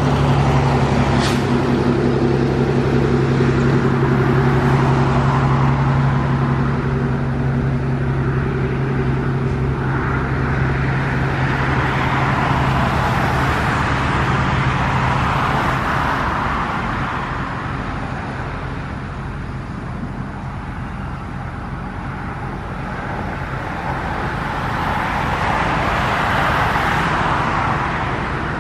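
Motor traffic. An engine hums steadily at a low pitch until about halfway through, and the rush of passing vehicles swells and fades twice.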